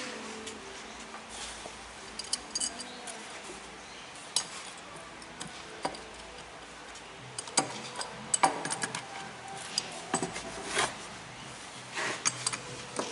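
Scattered clinks, knocks and light scraping from gloved hands handling a hot wooden sand-casting mold box. The sounds come more often in the second half.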